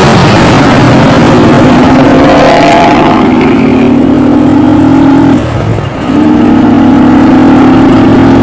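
Bus with a loud modified 'ngorok' growling exhaust running hard. The engine note holds steady, drops off briefly about five and a half seconds in, then comes back.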